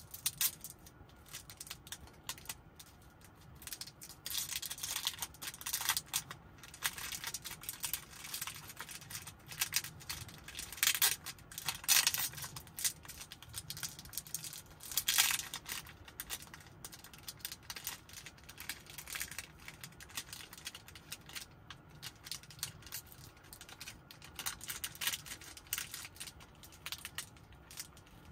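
Snack wrapper crinkling and tearing as it is opened by hand, in an irregular run of crackles that is busiest through the middle and thins out towards the end.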